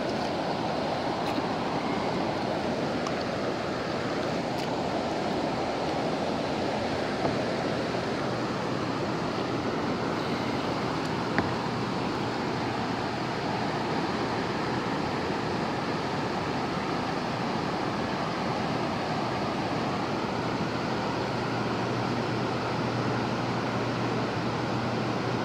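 Tallulah River rapids rushing steadily over rocks, with one sharp click about eleven seconds in.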